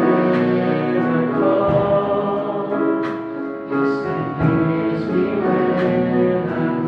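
Church praise band performing a worship song live: several voices singing together over guitar and keyboard, with a few sharp percussion hits.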